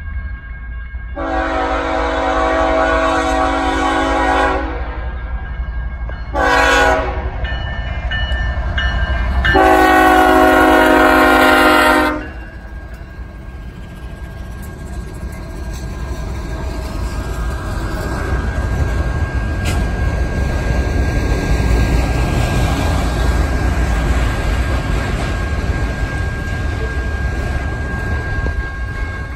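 Freight locomotive horn sounding for a grade crossing: a long blast, a short one and another long one. Then the lead GE locomotives and the train roll past, a loud rumble of diesel engines and wheels on rail that builds as the autorack cars follow, with the crossing's electronic bells ringing steadily underneath.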